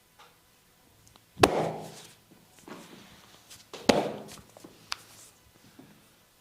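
Two loud, sharp smacks about two and a half seconds apart, with a few softer taps and rubbing between them: hand strikes from a barber's head and neck massage.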